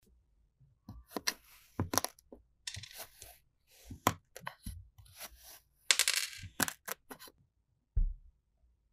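A knife slicing through moulded kinetic sand, making short crisp rasps and sharp clicks as the blade cuts and meets the surface beneath. Near the end there is a single low thump.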